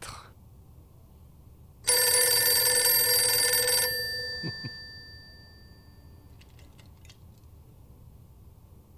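A bell rings loudly and steadily for about two seconds, starting about two seconds in, then stops and its tone dies away.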